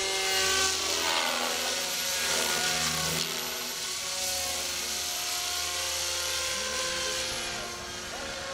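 Radio-controlled model helicopter flying overhead, its motor and rotors making a steady whine with several tones sliding up and down in pitch as it manoeuvres.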